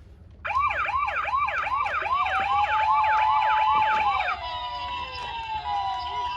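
Toy ambulance minicar's electronic siren. About half a second in it starts a fast yelp of quick rising sweeps, about three a second. A little after four seconds it switches to a steady alternating high-low two-tone.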